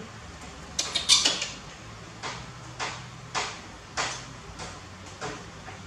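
Soft pats of a hand on a baby monkey's back as it sleeps on a person's chest, a steady series of light taps almost two a second, loudest just after a second in.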